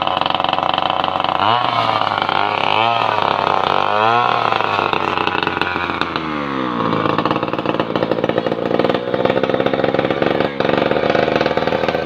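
An engine running, revved up and down three times in quick succession, then its pitch falls away about halfway through and it settles into a steady run.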